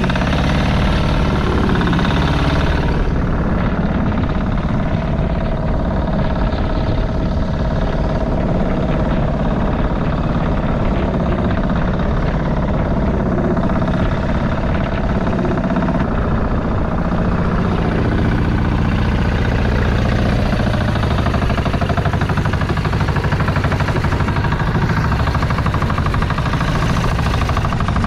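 Fishing boat's engine running steadily with the boat under way.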